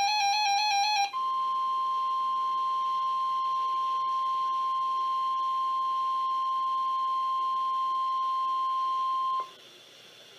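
NOAA Weather Radio alert sequence: the last of a buzzy, warbling SAME digital header burst cuts off about a second in. The steady 1050 Hz Warning Alarm Tone follows, a single pure high beep held for about eight seconds, signalling the start of a Tornado Watch. It then stops abruptly, leaving faint radio hiss.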